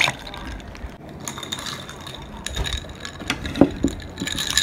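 Ice cubes and a metal stirrer clinking irregularly against a glass as an iced drink is stirred, with a louder knock about three and a half seconds in.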